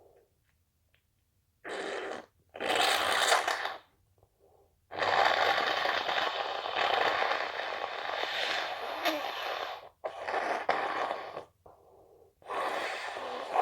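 A person with a congested nose from a cold blowing their nose hard, several times. There are two short blows, then one long one lasting about five seconds in the middle, then two shorter ones near the end.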